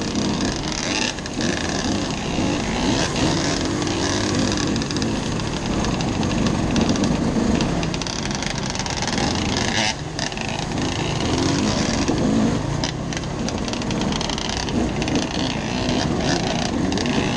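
Dirt bike engine running steadily under load as the bike rides a muddy trail, heard close up from the rider's helmet.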